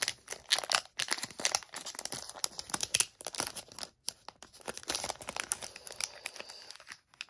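Foil Pokémon card booster pack being torn open and its wrapper crinkled in the hands: a dense run of sharp crackles with a brief lull about four seconds in.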